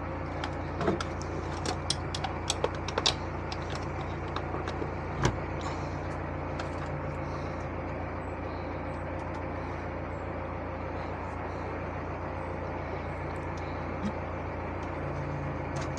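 Narrowboat engine running at a steady cruising speed, a constant low hum. A scatter of sharp ticks sounds over it in the first five seconds or so.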